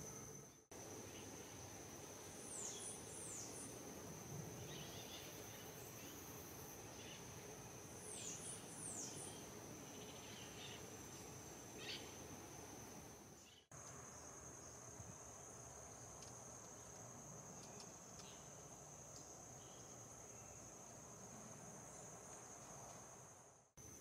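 A steady, high insect trill runs throughout. Twice in the first half it is joined by a quick group of three or four thin, high, downward-sweeping bird calls.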